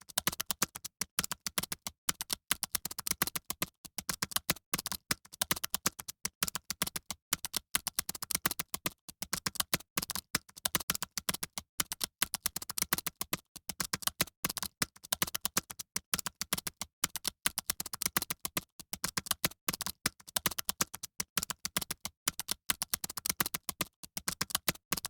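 Rapid, continuous typing on a computer keyboard: many keystrokes a second in quick runs, broken by brief pauses.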